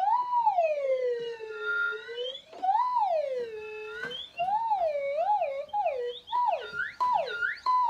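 Plastic slide whistle blown, its pitch sliding up and down. First come two long swoops up and slowly back down, then a short break about four seconds in. After that the pitch wavers quickly, and several fast falling swoops end it.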